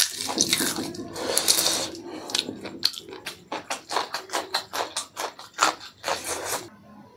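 A papad crackling as it is crumbled by hand, then close-up biting and chewing of a raw green chilli: a quick run of crisp crunches that stops near the end.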